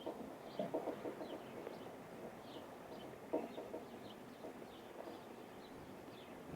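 Small birds at a feeder giving brief, high chip notes, many scattered through, with fainter short lower calls now and then.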